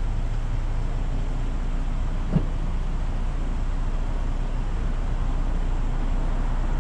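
Steady low rumble of an idling vehicle engine, with one short low thump about two and a half seconds in.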